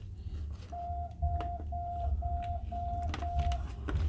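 Six short electronic beeps at one steady pitch, evenly spaced at about two a second, over a low rumbling handling noise on the microphone.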